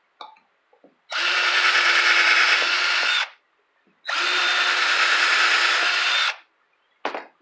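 Cordless drill running in two bursts of about two seconds each, boring pilot holes through a spring terminal's mounting holes into a wood block.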